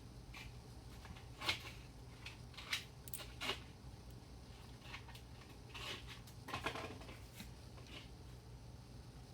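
Scattered light clicks and taps of small lock pins and tools being handled while pins are loaded back into the chambers of a pin-tumbler lock, over a low steady hum.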